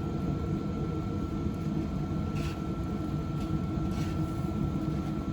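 Cuisinart Woodcreek pellet grill running with a steady low rumble and a thin steady whine, typical of its combustion fan. A few faint light taps come about two to four seconds in.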